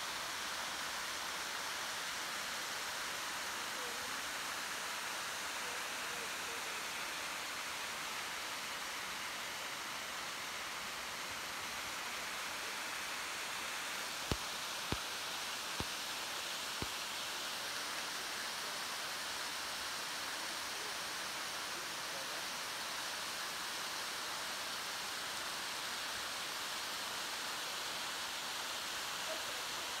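Steady rushing of a tall waterfall pouring down a cliff face. Four short clicks about halfway through, roughly a second apart.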